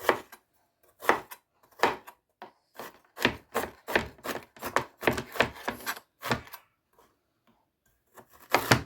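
Knife chopping food on a cutting board: a run of sharp, irregular strikes, several a second through the middle, then a short pause and one loud strike near the end.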